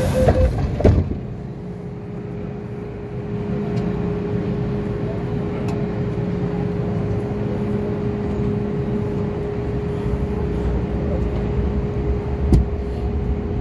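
Underground metro station ambience: a steady hum under the noise of the concourse. A short run of beeps stops just after the start, a thump follows about a second in, and there is a sharp click near the end.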